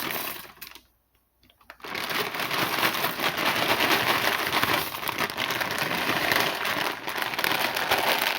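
Steady crackling and crinkling as dry wide egg noodles are poured from their plastic bag into a pot of boiling water. The sound cuts out completely for about a second early on.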